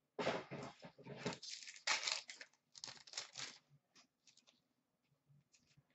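Hockey card pack wrapper being torn open and crinkled by hand, in three rustling bursts over the first three and a half seconds, followed by a few faint ticks of card handling.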